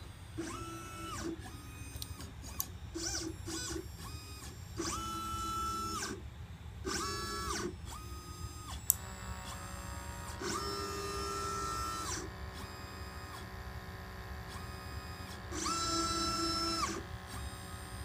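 Pick-and-place machine's gantry stepper motors whining through a series of moves. Each tone rises in pitch, holds, and falls back as the head speeds up and slows down, several moves one after another. There is one sharp click about nine seconds in, over a steady low hum.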